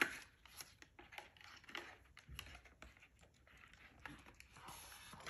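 Faint, irregular soft clicks and rustles, several a second.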